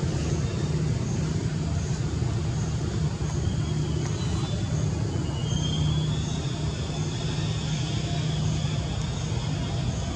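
Steady low outdoor rumble, with a faint high chirp repeating at an even pace.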